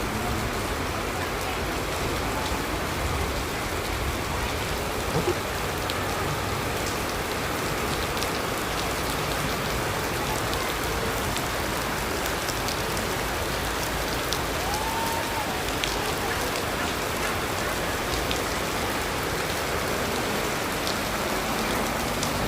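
Heavy rain falling steadily, an even hiss with scattered drip ticks throughout.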